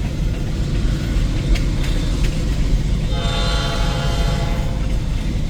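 EMD SD9 diesel locomotive's horn sounding one blast of about a second and a half, about three seconds in, over the steady low rumble of the passing train.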